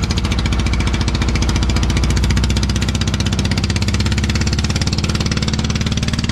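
Engine of a small motorboat running steadily under load while towing, a rapid, even pulsing beat.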